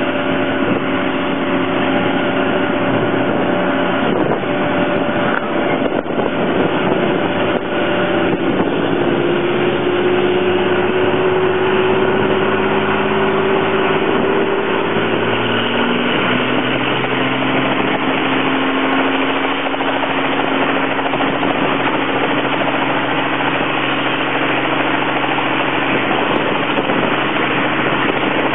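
Helicopter running steadily, its engine and rotor sound continuous, with a whine that slowly rises in pitch about a third of the way through and then levels off.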